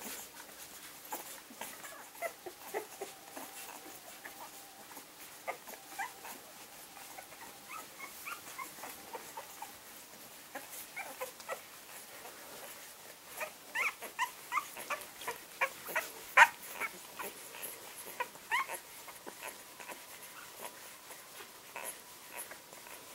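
Eleven-day-old English Springer Spaniel puppies squeaking and whimpering while they nurse, in many short high cries that come thickest and loudest from a little past halfway.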